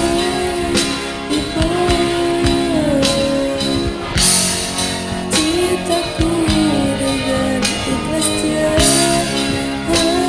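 Karaoke backing track with guitar and drums, with a voice singing long notes that slide up and down over it.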